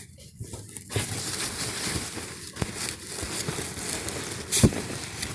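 Rustling and crinkling, with a few sharp clicks and a louder knock near the end.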